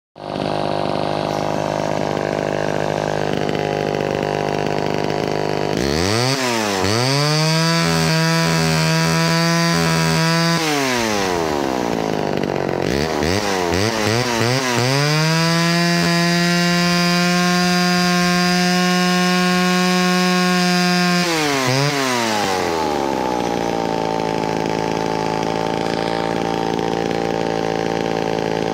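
1967 Homelite XL-12 chainsaw's single-cylinder two-stroke engine idling, then revved up twice and let fall back to idle. The first rev is held unevenly; the second holds a steady high pitch. The rebuilt carburetor is being dialed in.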